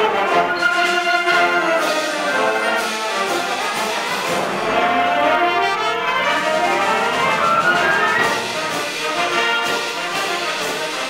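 Concert band of woodwinds and brass playing together, with runs sliding up and down in pitch in the middle.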